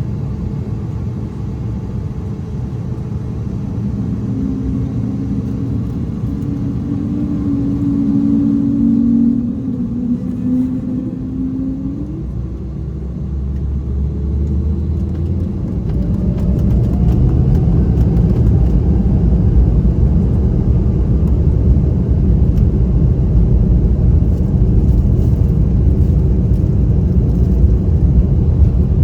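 Airbus A320 jet engines and rumble during the take-off run: a steady low rumble, then a rising whine about halfway through as the engines spool up. The sound grows louder and holds at take-off thrust.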